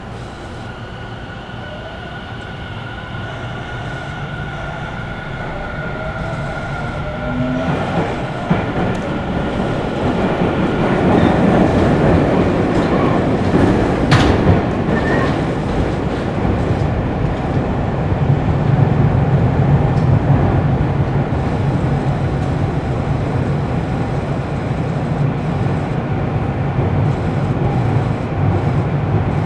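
Tobu electric commuter train running, heard from inside the car as it picks up speed: a faint rising motor whine over growing wheel and rail rumble, which gets louder through the first dozen seconds. A sharp click comes about 14 seconds in, and after that the train runs on with a steady low rumble.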